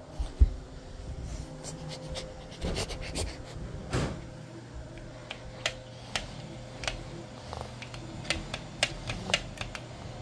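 Handling noise: a thump about half a second in, then scattered light clicks and taps as the phone and a plush toy are moved about, over a faint steady hum.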